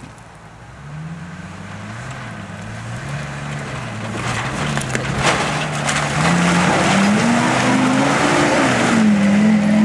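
Ford Super Duty pickup's engine revving up under load as it drives off through mud, its pitch climbing over the last few seconds. A rising rush of tyre and mud noise comes in about halfway through.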